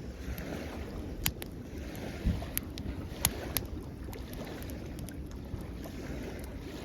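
Wood campfire crackling, with scattered sharp pops, over the steady wash of small waves at the shoreline.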